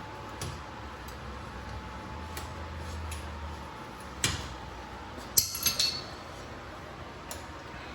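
Metal tools and parts clinking and tapping, with a sharp clink about four seconds in and a quick run of clinks a second later.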